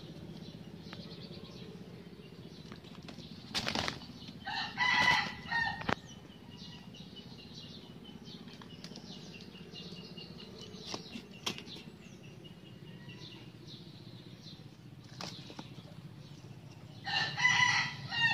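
Two roosters fighting: sudden bursts of wing flapping in two flurries, one a few seconds in and one near the end, with short calls from the birds among the flaps.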